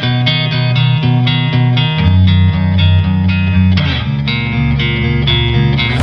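Background music led by guitar, with plucked notes on a steady beat.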